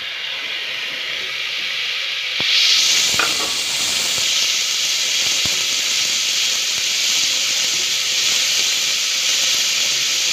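Sliced onions sizzling in hot mustard oil in an aluminium pressure cooker. The sizzle jumps louder about two and a half seconds in, as the rest of the onion drops into the oil from a steel plate, and then holds steady, with a couple of light clicks.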